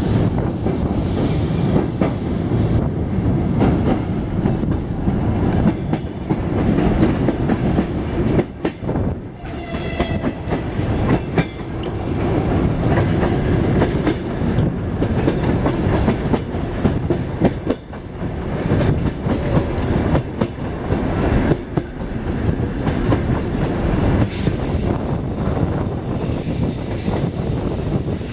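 Passenger train running along the track, heard from aboard: a steady rumble of wheels on rails with a rapid clickety-clack over the rail joints.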